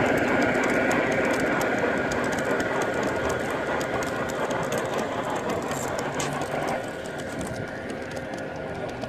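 G-scale garden model freight train rolling past on its track, its wheels clicking quickly and unevenly over the rail joints. The rolling noise fades as the wagons move away.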